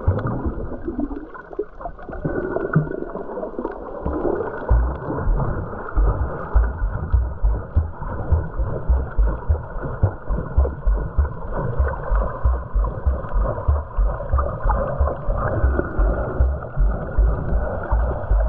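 Muffled underwater sound of a snorkeller's camera moving through water, a steady wash with faint ticks above it. From about four seconds in a regular low thumping sets in, about two or three beats a second.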